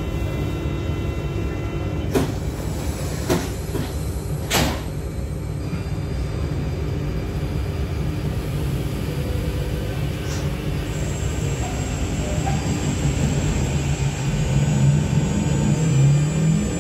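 Cabin sound of a Z20500 Transilien double-deck electric train at a platform: a steady low rumble with three sharp knocks in the first few seconds. Later a high steady whine comes in, and near the end low tones start to rise and grow louder as traction power builds for departure.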